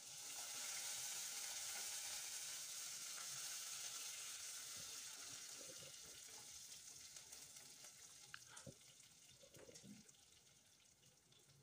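Faint sizzle of hot oil in a pot as a tempering of mustard seeds, cumin, garlic, green chillies and fresh curry leaves fries while a spatula stirs it. The sizzle is steady at first and dies down over the second half, with a couple of light clicks near the end.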